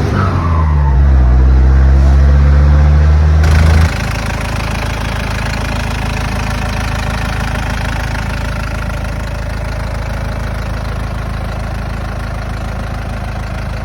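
Chevrolet Bonanza's 4.0 turbo diesel engine, loud, its revs falling away after a rev with a higher whine dropping along with them. About four seconds in it changes suddenly to a steady, quieter idle.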